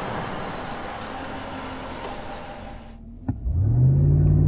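Road and engine noise of the Ram 1500 pickup fading as it drives past. Then, after a click about three seconds in, its eTorque Hemi V8 heard from inside the cabin, running steadily at low revs.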